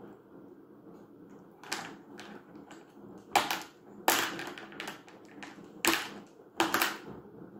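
Sharp, irregular knocks on a plastic high-chair tray, about six of them, as a baby bangs and pats at food on it.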